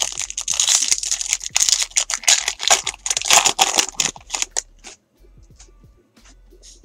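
Foil wrapper of a 2017 Topps Series 1 baseball card pack being torn open and crinkled: dense crackling for about five seconds. It then stops, leaving only faint ticks of the cards being handled.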